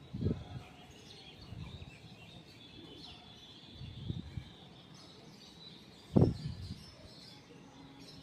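Birds chirping faintly, with four low bumps on the microphone, the loudest about six seconds in.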